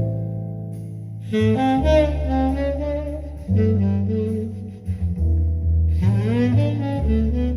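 Tenor saxophone playing a breathy jazz melody in phrases, with a bass line underneath. A new phrase comes in about a second in and another just after six seconds, with bent, sliding notes.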